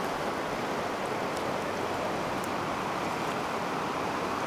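Steady rush of fast creek water running over rapids and riffles.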